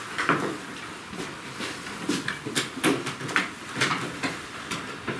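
Footsteps on a hard floor, a steady run of short knocking steps about two a second.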